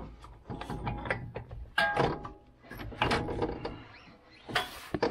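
Irregular metal clanks and knocks, some ringing briefly, as steel suspension parts and a front CV axle are pushed and worked into place by hand.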